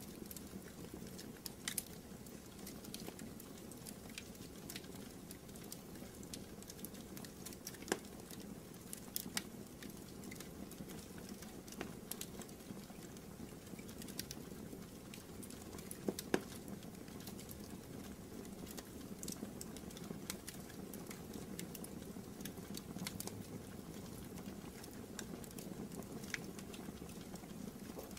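Wood fire burning in a fireplace: irregular crackles and sharp pops over a steady low rustle of the flames, with two louder pops about 8 and 16 seconds in.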